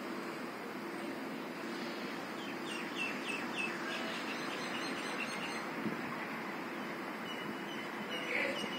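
A small bird chirping a quick run of short high notes about three seconds in, and again near the end, over steady background noise with a low hum.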